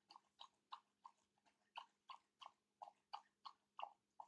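Near silence with faint soft clicks, about three a second and slightly irregular, over a low steady hum.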